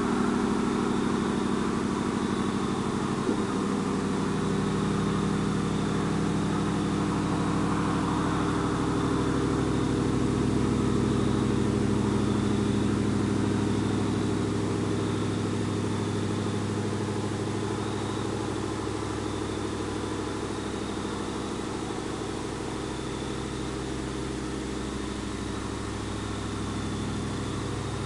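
2000 Chevrolet Silverado's 4.8-litre V8 idling steadily through a muffler with its fiberglass packing removed, with a brief click about three seconds in.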